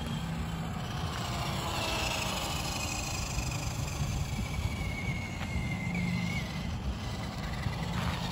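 Battery-powered RC monster truck driving on asphalt: the faint whine of its electric motor, sliding up and down in pitch with the throttle, over a steady rush of tyre and outdoor noise.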